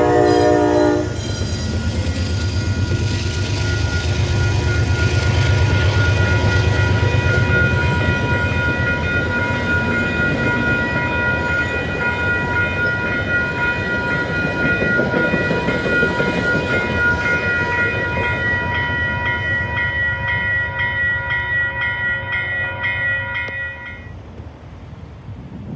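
A Metro-North GE Genesis P32AC-DM diesel locomotive's horn chord ends about a second in, and then the locomotive and its coaches pass close over a grade crossing with a steady rumble of wheels on rail. The crossing's warning bell rings steadily over it. Near the end the sound cuts off abruptly to a much quieter, distant background.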